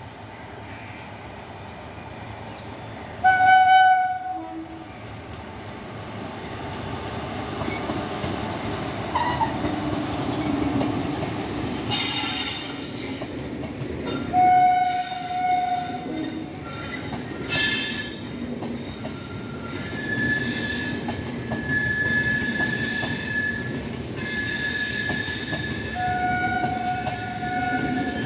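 An Indian Railways electric locomotive gives a loud horn blast about three seconds in, and a second blast about halfway through. A train of LHB coaches runs past with a rising rumble and clatter of wheels on rail, and high steady wheel squeal in the later part.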